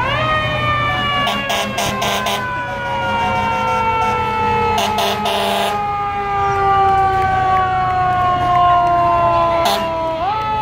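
Fire truck's mechanical siren, wound up sharply at the start and then slowly winding down in pitch for about ten seconds before it is wound up again near the end. A few short bursts of noise sound over it, about a second and a half in, around five seconds in, and near the end.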